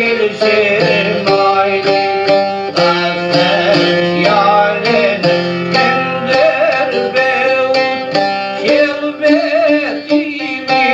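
Albanian folk song music: a quick plucked çifteli melody over a sustained low backing.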